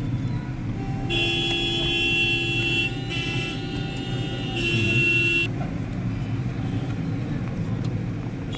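Road traffic rumbling steadily, with a vehicle horn sounding three times: a long blast about a second in, a short one, then another around five seconds in.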